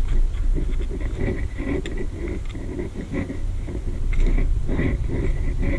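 A rock tumbler barrel's lid being pressed and worked down onto the barrel by hand, giving irregular squeaks, creaks and scrapes with a few small clicks, over a low steady hum.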